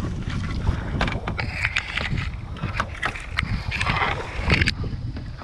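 Kayak paddle strokes splashing in the water, several in turn, over a steady low rumble of wind on the microphone.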